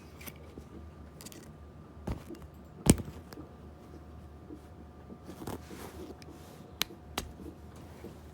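Handling of a folding multi-tool pocket knife: a few sharp clicks, the loudest about three seconds in and two more close together near the end, over light rustling.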